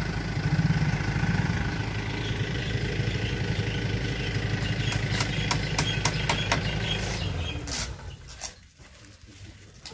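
Box delivery truck's engine idling steadily, with a few sharp clicks partway through. The engine sound drops away near the end.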